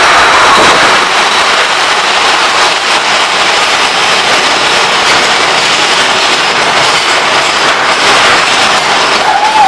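Mine-train roller coaster cars running along the track, a steady loud rattling rush of wheels and cars.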